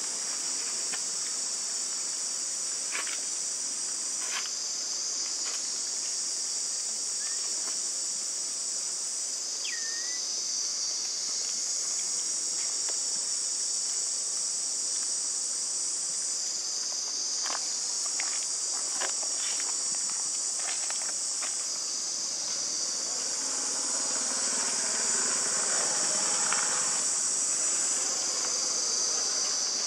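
A steady, high-pitched insect chorus that swells and eases slowly. Over it are occasional light ticks, a short chirp about ten seconds in, and a rustle near the end.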